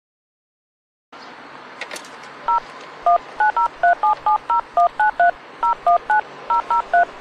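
Keypad of a public payphone being dialled: a fast run of short two-tone DTMF beeps, about four a second, beginning about two and a half seconds in. Before it, after about a second of silence, a steady background noise comes in and there is a single click.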